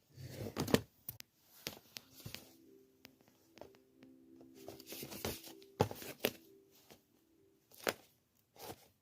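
Handling sounds from a pistol being turned over and shown: a string of sharp clicks and knocks with some rustling, loudest near the start and again around six and eight seconds in.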